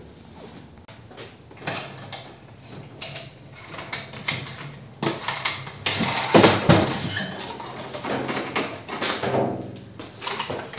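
Irregular metal clanks, knocks and scraping as a bench drill press head is loosened and lifted off its steel column by hand.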